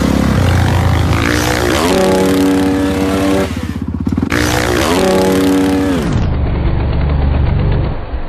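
Dirt bike engine revving hard under acceleration: its note climbs, holds and drops away twice, the second drop about six seconds in, after which the sound is duller.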